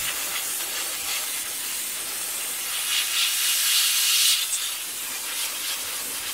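Canned compressed air spraying in a long continuous hiss into a laptop's cooling fan and heatsink to blow out dust, growing louder for a moment about three to four seconds in.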